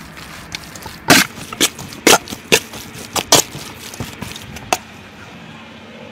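Metal spoon knocking against a metal bowl while stirring sliced beef in its sauce marinade: a dozen or so sharp, irregular clinks over about four seconds, stopping about a second before the end.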